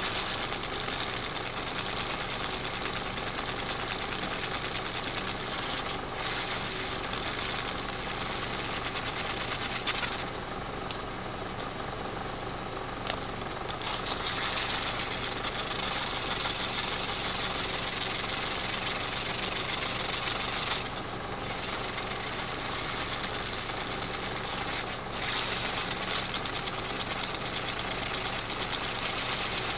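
Motorised light-up toy ball dangling from a stretchy cord, its motor buzzing and rattling steadily. The sound thins out briefly a few times as the ball is handled.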